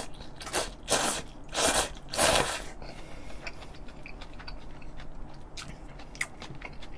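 A person slurping noodles from a bowl of soup, three or four loud slurps in the first couple of seconds, then quieter mouth-closed chewing with small wet clicks.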